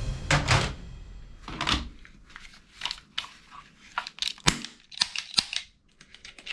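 Plastic toy gun being handled: a string of irregular clicks and scrapes, with two sharper clicks in the second half.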